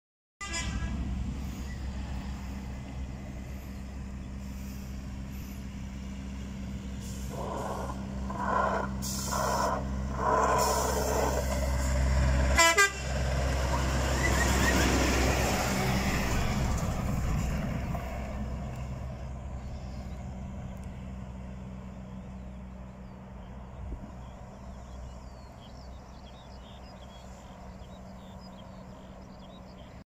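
Scania truck with a refrigerated semi-trailer passing close by, its diesel engine running. There are several short horn toots about eight to eleven seconds in. The engine grows louder as the truck goes by and then fades as it drives away.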